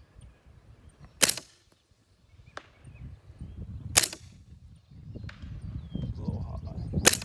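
Three suppressed 9mm gunshots about three seconds apart, each a sharp muffled crack. After the first two there is a faint distant tap about a second later, the bullet striking downrange.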